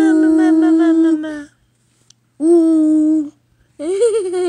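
A voice humming long, steady notes: one held for about a second and a half, a shorter one in the middle, and a wavering one that starts near the end.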